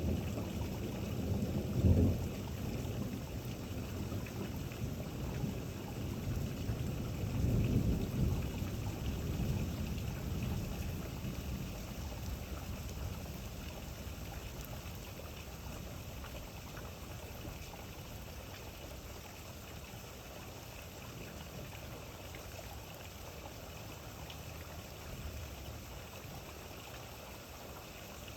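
Steady rain falling, with thunder rumbling: a sharp low crack about two seconds in and a longer rolling rumble around eight seconds, after which the thunder dies away and the rain carries on more quietly.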